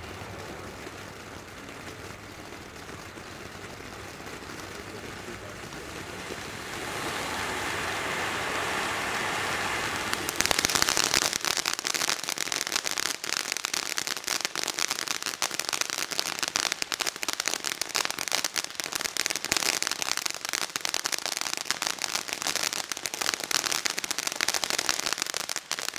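Weco Andromeda ground fountain firework burning: a steady rushing hiss of spraying sparks that grows louder about seven seconds in. About ten seconds in it turns to dense, fast crackling.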